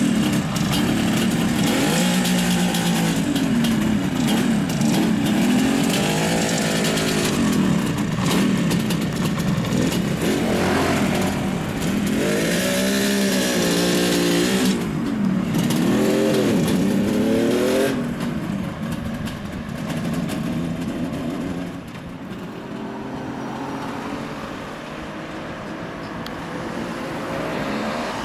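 Kawasaki Mach III 500SS H1C's two-stroke three-cylinder engine revving as the motorcycle rides off, its pitch rising and falling several times through the gears. The engine sound fades as the bike moves away near the end, with street traffic behind it.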